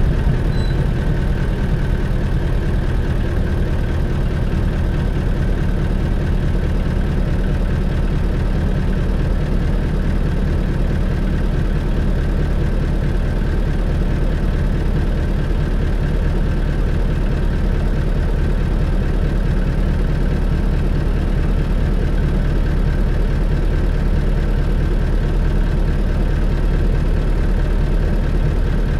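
A 1997 Isuzu Cubic KC-LV380L city bus's diesel engine idling steadily while the bus stands, heard from inside the cabin as an even low drone.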